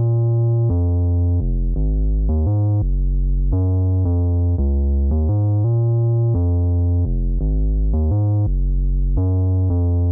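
Relaxing background music: a soft synthesizer or electric-piano melody of held notes with a deep bass line, changing note about every half second at a steady level.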